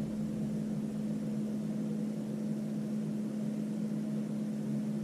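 A steady low machine hum at one even pitch, with no change.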